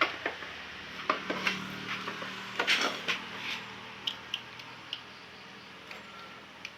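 Metal clinks and knocks of tools and small parts being handled: a quick run of them in the first three and a half seconds, then a few scattered lighter taps.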